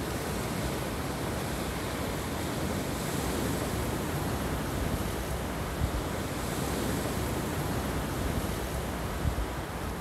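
Sea surf breaking over rocks and washing up a pebble beach, a steady rushing wash, with wind rumbling on the microphone now and then.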